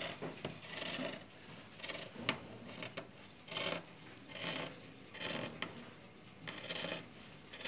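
Fabric scissors snipping through folded cloth along a marked curve, a series of short cutting strokes about once a second.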